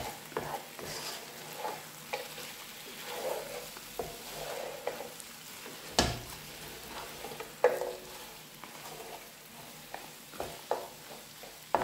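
Wooden spoon stirring lamb trotters frying in a non-stick pan: a light sizzle under irregular scrapes and knocks of the spoon against the pan, with sharper knocks about six seconds in, near eight seconds and at the end.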